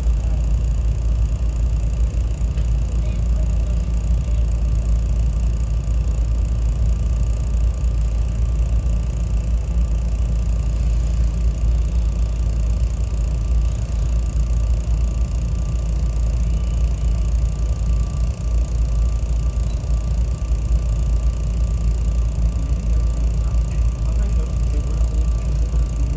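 Steady low rumble of a SEPTA Regional Rail train car heard from inside the cabin, with a faint steady whine above it.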